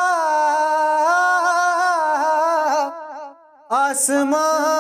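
A man singing a naat unaccompanied, drawing out long held notes that waver and turn in pitch. He breaks off briefly about three seconds in, takes a breath, and comes back in.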